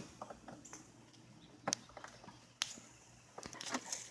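A few faint, sharp clicks and knocks, one a little under two seconds in, another a second later and a short cluster near the end: small hand tools and loose screws being handled during work on a car door panel.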